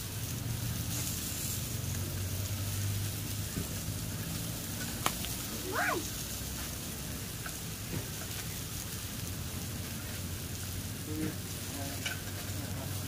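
Beef sizzling on a moo kratha dome grill-pan over a charcoal stove, with broth simmering around the rim, and a few light clicks of chopsticks against the pan. A low steady hum runs underneath.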